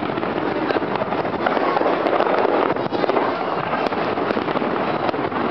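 Fireworks display going off continuously: a dense run of pops and crackles over a steady wash of noise.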